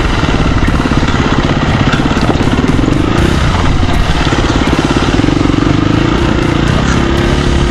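Husqvarna FE350 single-cylinder four-stroke dual-sport engine running loud under way on a trail, its note rising and falling several times with the throttle.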